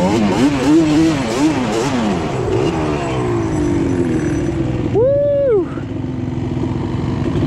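Yamaha Banshee's two-stroke twin engine revving hard, its pitch rising and falling with the throttle, then winding down as the quad slows. A short shout about five seconds in.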